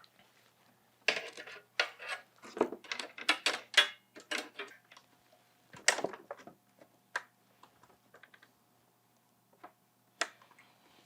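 Light irregular clicks and knocks of a motherboard being handled and pushed against the standoffs in a PC case, a quick run of taps in the first few seconds, then scattered single clicks with one louder knock near the middle.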